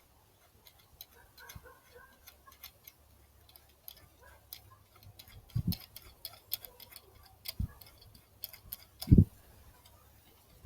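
Irregular clicks and taps of plastic parts being handled as a laser-level receiver is clamped onto its measuring rod, with a few dull thumps, the loudest about nine seconds in.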